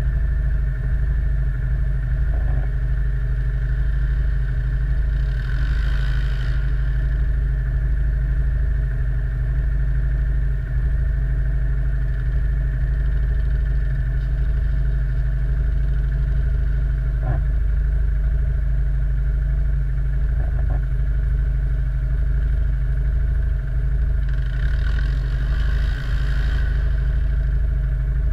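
ATV quad-bike engine running steadily at an even speed, with a few faint clicks and rattles over it.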